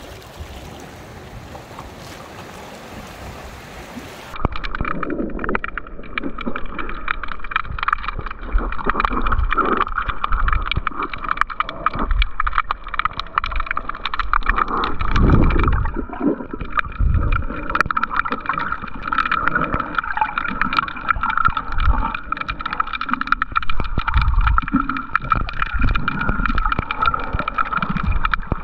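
Water noise: a steady hiss for about four seconds, then a sudden change to muffled sloshing, gurgling and irregular low knocks under a steady high whine, as picked up by a camera under water.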